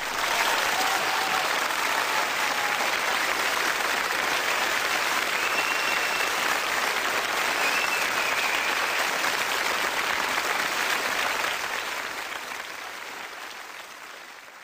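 Crowd applause, a steady wash of many hands clapping, fading out over the last few seconds.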